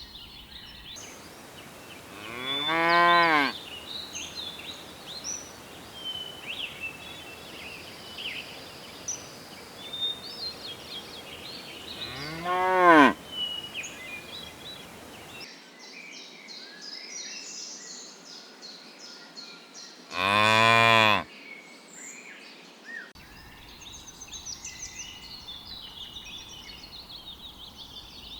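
Cattle mooing three times, each call about a second long, rising and then falling in pitch. Small birds chirp between the calls.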